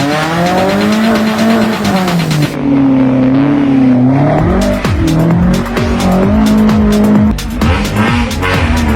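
Off-road competition vehicle's engine revving hard, its pitch rising and falling repeatedly, with several quick drops in revs in the second half.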